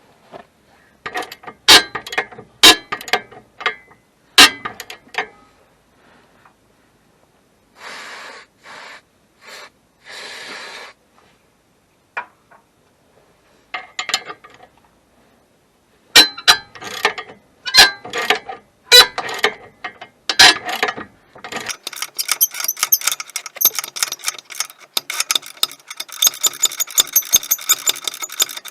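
Metal hand tools clanking and knocking against car parts during a suspension job, with a few short hisses in the middle. About two-thirds of the way in a socket ratchet starts clicking rapidly as a fastener is turned.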